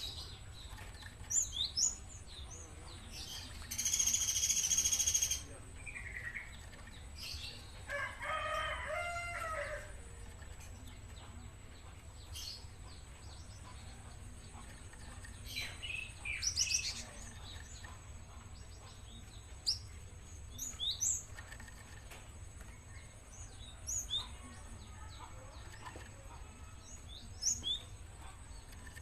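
A young gelatik songbird giving short, high chirps again and again. A rooster crows about eight seconds in, and there is a loud hissing burst at about four seconds.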